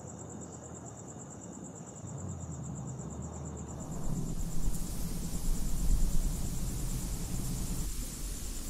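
Crickets trilling steadily in a fast high pulse, over a low rumble that grows louder about halfway through.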